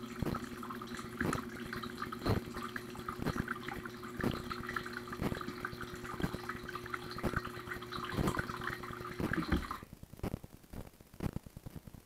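Dishwasher wash pump running and its spray jets hissing against the inside of the tub, with a steady low hum and a sharp knock of water striking about once a second; the jets are working normally. About ten seconds in the pump cuts off and the spray stops suddenly, leaving scattered drips.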